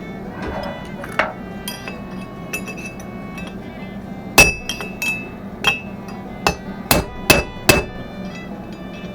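Hammer driving a wheel bearing race out of a truck's front hub with a driver: a light tap about a second in, then a quick run of about eight sharp, ringing metal-on-metal blows in the second half.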